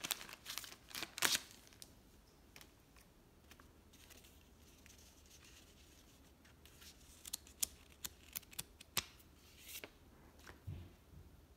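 Clear plastic wrapping crinkling as hands handle a wrapped stack of paper play-money bills. Scattered light clicks follow, and near the end there is a soft thump as the stack is set down on the table.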